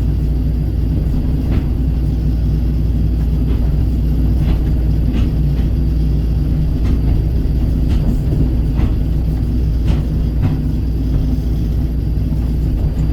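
Kobelco hydraulic excavator's diesel engine running steadily under working load, with scattered light knocks and clinks every second or so.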